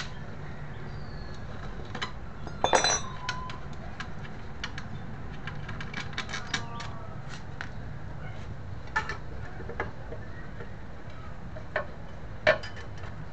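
Metal clinks and taps of loosened bolts and tools as a scooter's CVT cover is unbolted by hand and pulled off, with a louder clatter about three seconds in and a sharp knock near the end, over a steady low hum.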